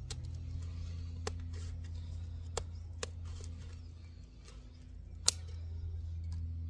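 Scissors snipping through a chicken's wing flight feathers: a handful of short, sharp snips spread out over several seconds.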